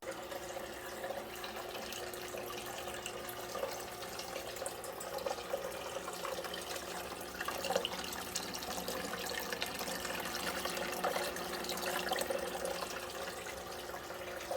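Small tabletop waterfall fountain running: water pumped over the rocks and falling into its basin in a steady splashing trickle, with scattered drips.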